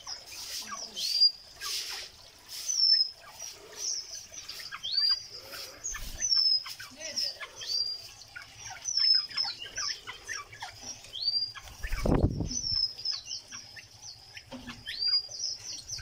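Small parrots chirping and calling in an aviary: steady twittering, with a short call that rises and then levels off repeating every few seconds. A brief low rumble comes about twelve seconds in.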